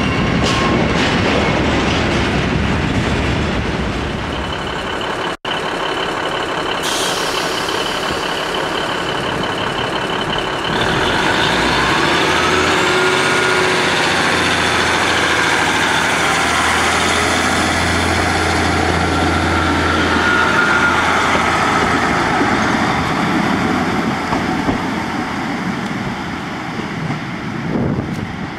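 Empty freight wagons rolling past for the first few seconds. After a break, a Class 150 Sprinter diesel multiple unit stands with a steady tone, then its underfloor diesel engines rev up about 11 s in, with rising whines and a low drone as it pulls away, fading off near the end.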